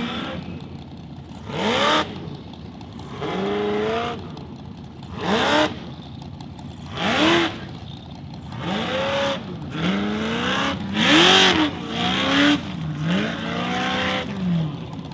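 Formula Offroad competition car's engine revving hard in repeated surges, its pitch climbing and dropping roughly every one to two seconds as the throttle is worked; the loudest surge comes about eleven seconds in.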